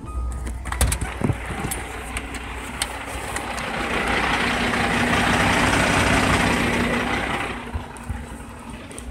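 Heavy truck's Cat C15 diesel engine idling close by, with a few sharp clicks and knocks about a second in. A broad rush of noise swells up in the middle for about four seconds and then fades.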